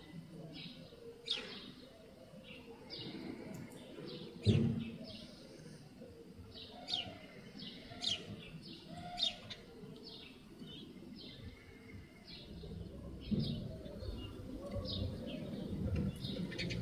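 Small garden birds chirping: many short, sharp, falling chirps in an irregular stream, with a single dull thump about four and a half seconds in.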